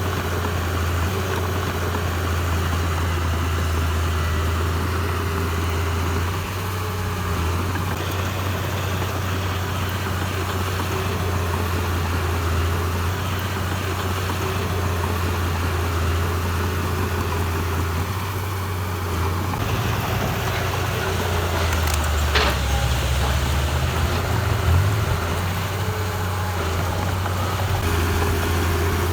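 Heavy construction-machine diesel engine running with a steady low hum; its note wavers about twenty seconds in, and there is a single sharp knock a little after that.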